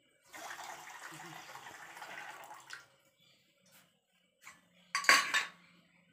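Kitchen tap running into a steel sink for about two and a half seconds, then shut off. A few light clicks follow, then a short loud clatter of steel utensils about five seconds in.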